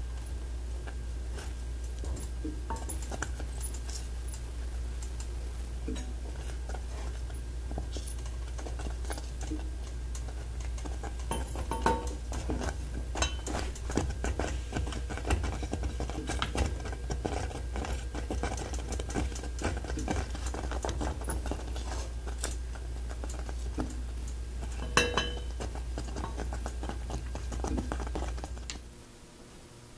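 Wooden spoon stirring and scraping thickening creamed corn in a stainless steel saucepan, with many small clicks and knocks against the pan and a sharper knock a few seconds before the end. A steady low hum runs underneath and cuts off near the end.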